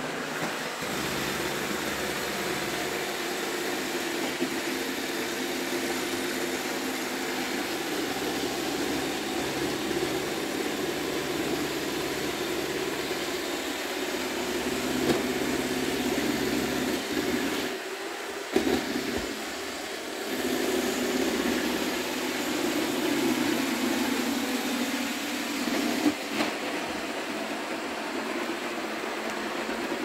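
iRobot Roomba 660 robot vacuum running: a steady hum from its vacuum motor and spinning brushes, with a few brief knocks and a short drop in the noise about two-thirds of the way through.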